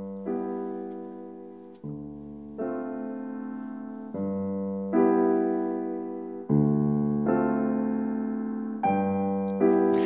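Solo piano music: slow chords struck about once a second, each ringing and fading before the next.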